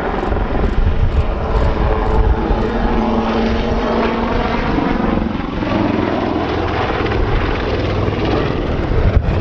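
Westland Lynx helicopter in flight, its main rotor and twin Rolls-Royce Gem turboshaft engines running steadily as it banks through a display manoeuvre.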